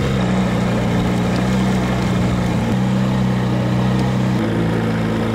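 Small outboard motor running steadily, pushing an inflatable dinghy along; its note shifts slightly a few times.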